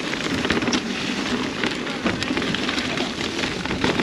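Mountain bike riding down a dirt trail: tyres crunching and rattling over rocks and gravel, thick with sharp clicks and crackles.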